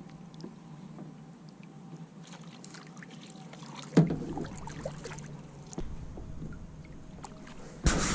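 Small clicks and knocks of handling aboard a kayak, with one sharp louder knock about halfway through. Low rumbling wind noise on the microphone starts near the end.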